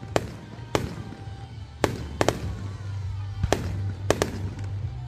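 Aerial fireworks bursting overhead: about eight sharp bangs at irregular spacing, some in quick pairs.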